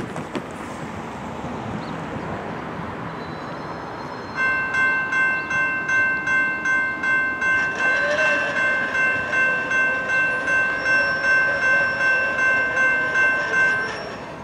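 Railroad grade-crossing warning bell ringing in even strokes about twice a second while the crossing gates lower. It cuts off just before the end, once the gates are down. Before the bell starts, a car drives over the crossing.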